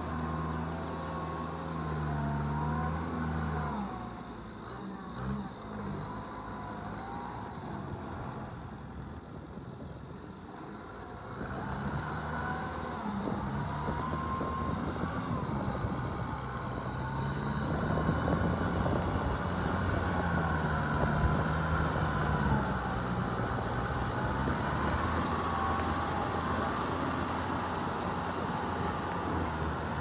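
Kubota M6240SUH tractor's diesel engine running under load as it drags a rotary tiller through wet paddy mud, its note wavering up and down. It goes quieter a few seconds in, picks back up a little before halfway, and is loudest just past the middle.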